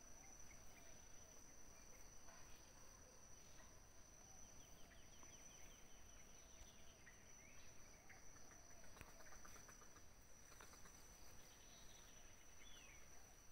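Faint outdoor ambience: a steady high-pitched insect trill, with a few faint bird chirps.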